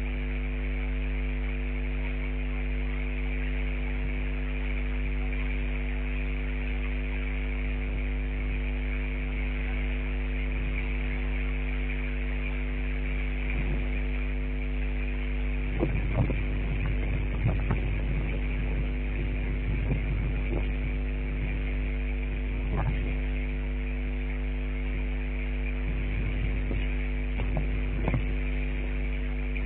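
A steady hum made of several held tones, with scattered irregular knocks and taps partway through and again near the end.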